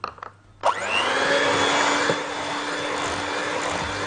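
Electric hand mixer switched on under a second in: its motor whirs briefly up to speed and then runs steadily as the beaters work an egg into creamed butter and sugar.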